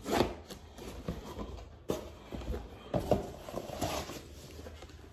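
A DVD box set and its cases being handled on a table: a few knocks and rustling, the strongest knocks near the start and about three seconds in.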